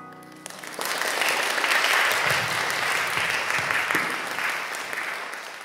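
Audience applauding, beginning about half a second in as the last chord of the piano accompaniment dies away, swelling quickly and then slowly tapering off.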